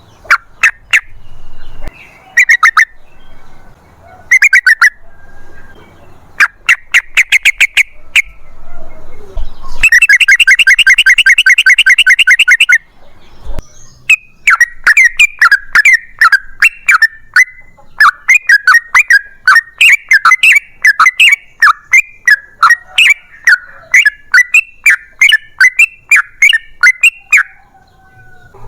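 Yellow-vented bulbul (trucukan) singing. Short bursts of chirping notes come first, then a fast unbroken trill lasting about three seconds, starting about ten seconds in. After that comes a long run of quick chirps.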